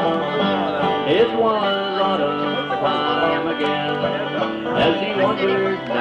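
Live bluegrass band playing an instrumental break between sung verses: banjo, fiddle, guitar and bass, with a few sliding fiddle-like notes. The sound is a cassette-tape recording with a dull top end.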